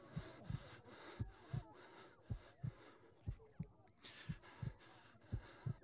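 A slow heartbeat, one double thump (lub-dub) about every second, over a pulsing hiss that thins briefly a little after three seconds in.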